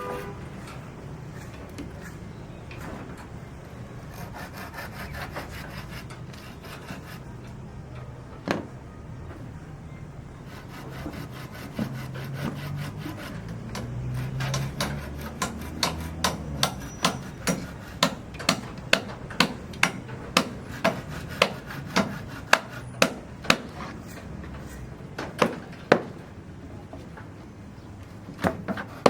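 Hand carpentry on wood: a rough, steady sawing and rubbing sound. About halfway through, a steady run of sharp strikes begins, about two a second, and a few single knocks follow near the end.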